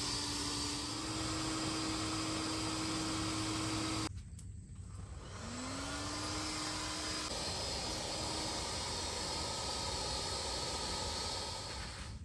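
A motor running with a steady hum. It cuts off about four seconds in, then winds back up with a rising whine and runs on steadily.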